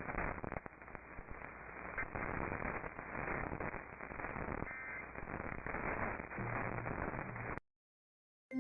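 Radio receiver static: a crackling hiss with no signal, thin and band-limited like an alert-radio feed. It cuts off abruptly about seven and a half seconds in.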